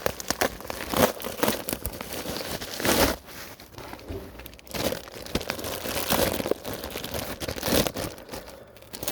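Packaging being torn and crinkled open by hand, irregular crackling rustles and short tearing sounds.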